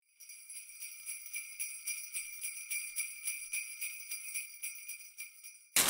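Sleigh bells jingling in a steady shaken rhythm, about four shakes a second, cutting off suddenly near the end.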